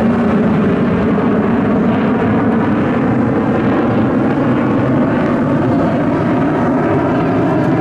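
Lockheed TF-104 Starfighter's General Electric J79 turbojet howling in a loud, steady flypast.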